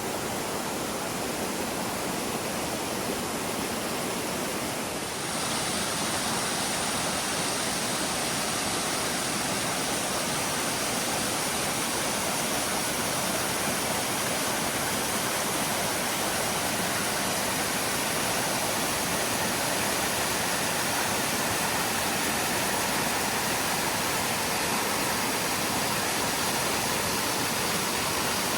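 A waterfall rushing steadily. It gets a little louder and brighter about five seconds in.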